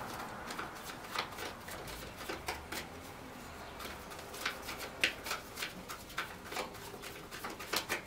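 A deck of tarot cards being shuffled by hand in an overhand shuffle: a run of quiet, irregular clicks as packets of cards drop from one hand onto the other.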